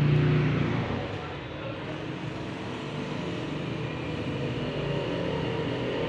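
A motor vehicle passing close by, loudest right at the start and fading within about a second, then a steady traffic hum.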